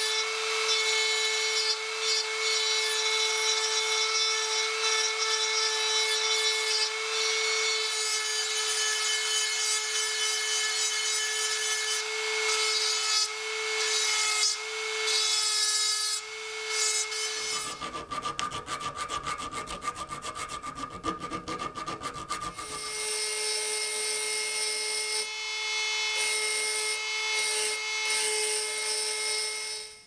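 Handheld rotary tool running at a steady high whine as its grinding bit shapes a welded metal ball on the end of a small rod, with the rasp of the bit against the metal. For several seconds past the middle the sound turns rougher and higher, then the steady whine returns.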